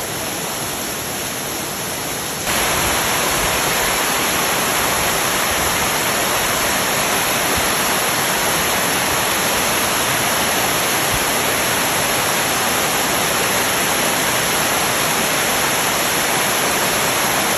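Waterfall: a steady rush of falling water that gets louder all at once about two and a half seconds in, then holds level.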